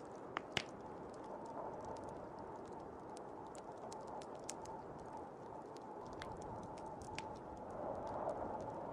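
Wood fire crackling with scattered sharp pops, two louder ones under a second in, over a steady rush of blizzard wind carrying a faint wavering whistle.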